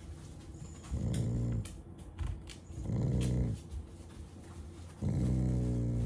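Black Shiba Inu growling in three low rumbles about two seconds apart, the last one longest, while being stroked on the head. The owner says this growling is his way of showing affection, not anger.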